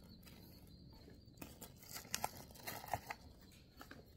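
Faint rustling of a plastic bag and a few light clicks and taps as small items are handled and set down on a workbench, the sharpest clicks about two and three seconds in.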